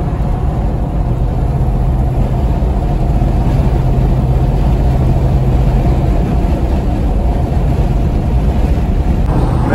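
Engine, tyre and wind noise heard inside an old-school car's cabin cruising at interstate speed: a steady, loud low drone. A low hum stands out of it for a few seconds in the first half.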